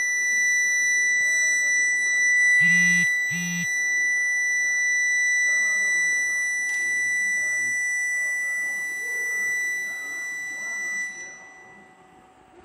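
TIG welding arc from a Merkle MobiTIG 180 AC/DC inverter welder, giving a steady high-pitched whine, with two short buzzes about three seconds in. The arc is broken about eleven seconds in and the whine stops.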